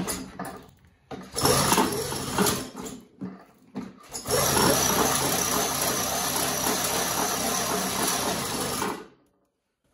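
Bicycle with an 80cc two-stroke kit engine being pedalled on a stand to turn the engine over. The chain and rear wheel spin, uneven at first, then steady from about four seconds in, and the sound cuts off suddenly near the end. The engine does not catch.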